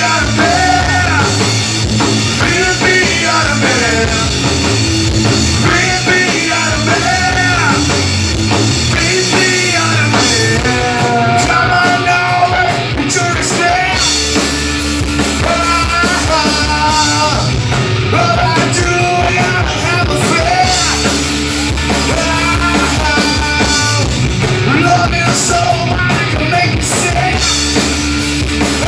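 A rock band playing live and loud: a singer over distorted guitars and a drum kit.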